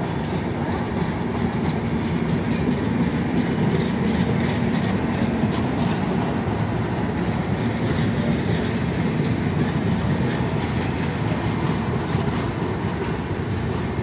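Indian Railways passenger coaches of a long-distance express rolling past close by: a steady rumble of wheels on rail, with a run of clattering clicks from the wheels crossing rail joints.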